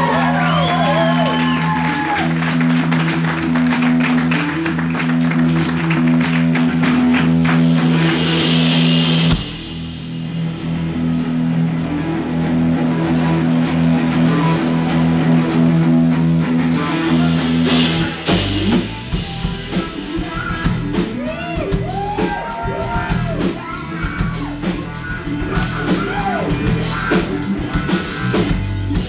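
Live rock band playing: electric guitars, bass, keyboard and drum kit. The music drops back about nine seconds in, and a heavier drum-and-bass beat kicks in about 18 seconds in.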